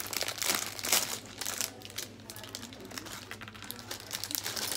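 Clear plastic parts bag crinkling as small hands open it and rummage inside for the toy pieces, busiest in the first two seconds and lighter after.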